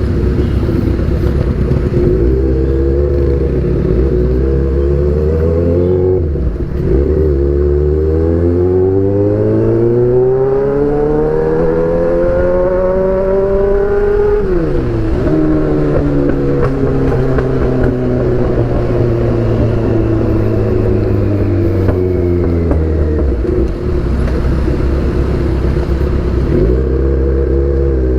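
Kawasaki Z800's inline-four engine through an Austin Racing exhaust while riding: the revs climb slowly for several seconds, fall off sharply about halfway through, then hold and ease down before picking up again near the end.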